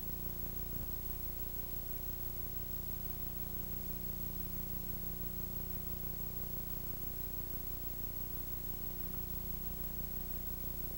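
Steady hiss with a low, even hum underneath and no program sound: the noise floor of a VHS recording copied over several generations.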